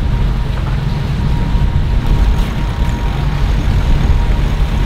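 Steady low rumble aboard a catamaran under way, with wind and water noise.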